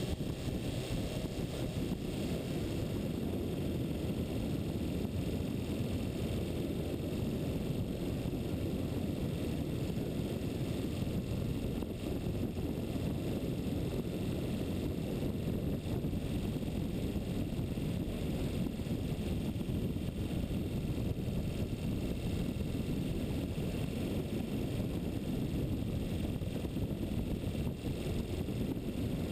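Wind buffeting a moving camera's microphone at speed on a fast bicycle descent: a steady low rumble of rushing air that does not let up.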